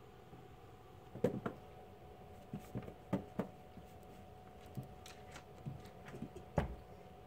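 A series of light, sharp taps and knocks at irregular intervals, over a faint steady hum.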